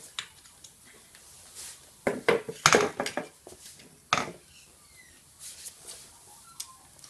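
Metal intercooler clunking on a concrete floor as it is turned over and set down: a cluster of knocks about two to three seconds in and one more near four seconds, with a few faint ticks after.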